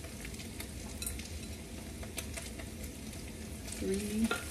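Steady sizzle of scrambled egg, garlic and onion frying in a hot wok as day-old rice is added a cup at a time, with scattered light clicks and taps.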